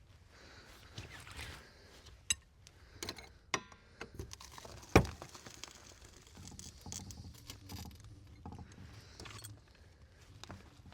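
Hand tools and wheel bolts clinking and knocking on and off while a car wheel is changed by hand, with one sharp knock about five seconds in the loudest.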